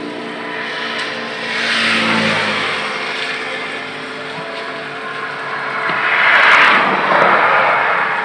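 Road traffic going past: two vehicles pass, a smaller swell about two seconds in and a louder one about six and a half seconds in, over a steady background hum.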